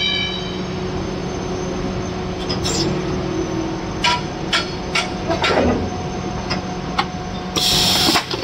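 Injection molding machine running with a steady hum as its 16-cavity bottle-cap mold opens. A few sharp clicks and knocks come from about halfway through, and a loud hiss lasting about half a second comes near the end.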